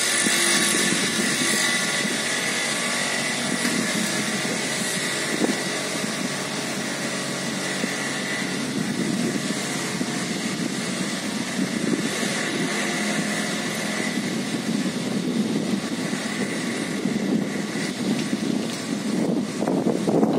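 Hydraulic vibratory piling hammer on an excavator arm, running as it vibrates a steel sheet pile into the ground, together with the excavator's engine: a steady loud drone with a constant high whine that comes in sharply at the start and turns rougher near the end.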